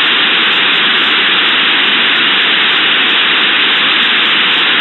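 Computer-generated white noise: a MATLAB sequence of 50,000 uniform random numbers played at 8,000 samples per second, heard as a steady, loud static hiss with no high treble.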